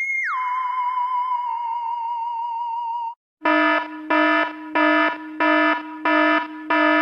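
Electronic sound effects: a warbling tone that drops suddenly to a lower pitch and holds for about three seconds, then after a brief gap a buzzy alarm-like beep repeating about twice a second.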